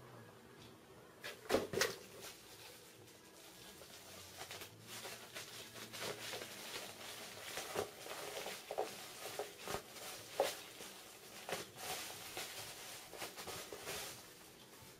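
Bubble wrap rustling and crackling as a power supply unit is handled and unwrapped, with two sharp knocks about a second and a half in and small crinkling clicks after.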